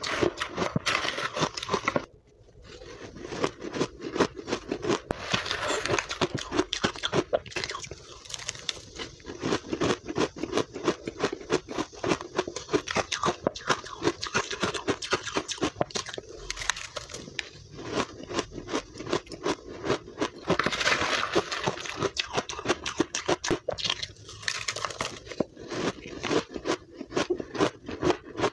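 Close-miked crunching and chewing of blender-crushed powdery ice, with a metal spoon scraping through the ice in a plastic tub. Dense, rapid crackling crunches throughout, with a short pause about two seconds in.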